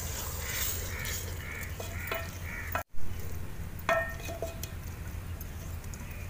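Chana dal cooking and sizzling in an aluminium pot while a wooden spoon stirs it and knocks against the pot a few times, loudest just before 4 seconds in. In the first half there is a run of about six short, evenly spaced sounds. The sound drops out for a moment just before 3 seconds.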